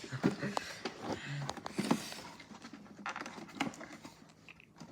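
Light clicks and knocks of plastic toy washing-machine parts being handled and snapped back together, with a few faint voice sounds.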